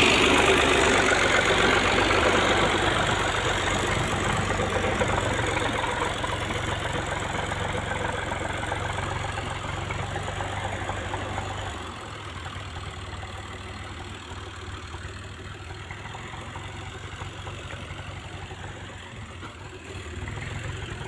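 Kubota M5000 tractor's diesel engine running steadily in the background, growing fainter, with a drop in level about halfway through.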